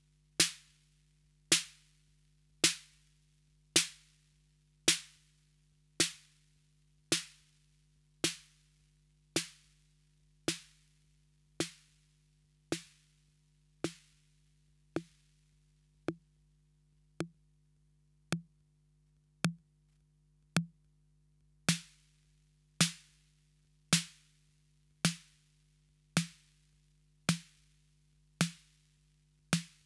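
Roland TR-808 analogue drum machine's snare drum playing a steady single hit about once a second, each hit a short thump with a hissing tail. As its snare controls are turned, the hiss thins out and shortens to a dry click for a few seconds in the middle, then comes back full.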